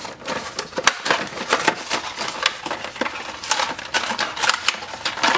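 Plastic blister packaging crackling and its cardboard backing card tearing as a toy blister pack is ripped open by hand, a rapid irregular run of sharp clicks and crinkles.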